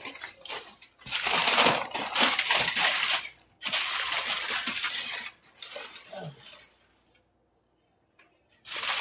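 A packed cornstarch brick being scraped and broken apart, in three long gritty crunching scrapes. They stop for about a second and a half, then start again near the end.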